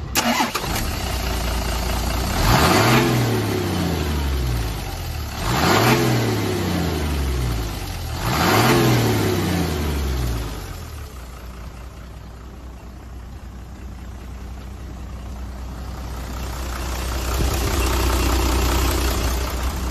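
Mitsubishi Fuso Fighter's 6D17 inline-six diesel engine revved three times, about three seconds apart, each rev rising and falling back, then settling to a steady idle that grows louder near the end.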